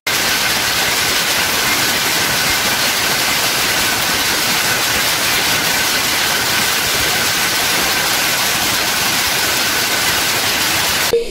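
Many shuttle power looms running together in a weaving shed, a loud, dense, steady machine noise with a faint steady whine in it. It cuts off just before the end.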